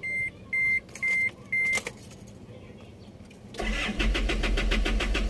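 Four short electronic beeps about half a second apart. Then, after a pause, the starter cranks the Isuzu Alterra's 4JJ1 diesel engine with a quick, regular chugging that has not caught by the end. This is hard starting, which a crankshaft position sensor circuit fault code points to.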